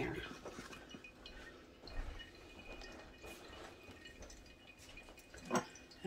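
Faint dripping of liquid through a paper coffee filter into a glass mason jar, with a few soft glass clinks.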